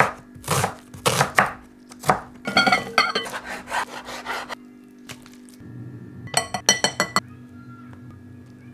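Knife chopping on a cutting board in a few irregular strokes, with a later quick cluster of ringing clinks from kitchen utensils against dishes.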